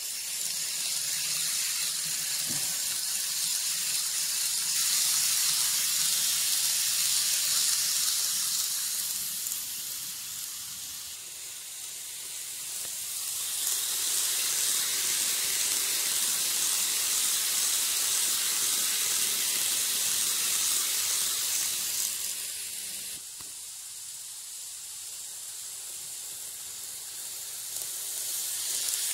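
Model N700 series shinkansen train running on its track: a high-pitched whirring hiss of motor and wheels on the rails that swells and fades three times as the train passes close by.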